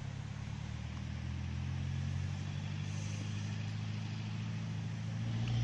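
An engine running with a steady low hum, growing a little louder near the end.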